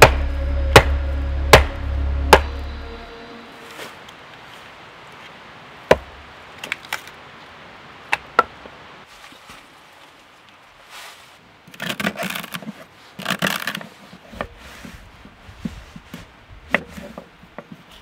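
A hatchet splitting kindling on a wooden chopping block, four sharp strikes about a second apart over music that fades out. Later, a knife cutting vegetables on a wooden board, with clusters of quick chops and scrapes.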